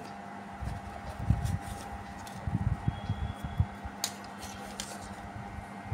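Hands rummaging inside a cylindrical smartwatch box and lifting out the paper warranty card and manual, giving irregular soft handling bumps and paper rustles, with a sharper click about four seconds in, over a steady faint hum.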